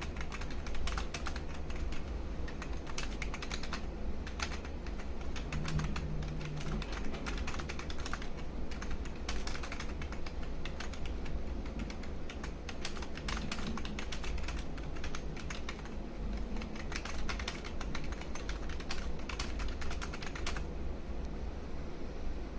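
Computer keyboard keys clicking in fast runs of typing with short pauses, stopping near the end, over a steady low hum.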